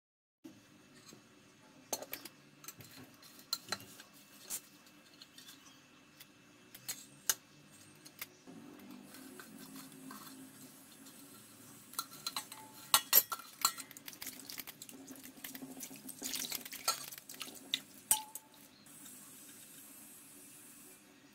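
Thoodhuvalai leaves being handled and washed in a stainless steel bowl: water swishing with scattered clinks and knocks of the metal bowl, busiest and loudest in the second half.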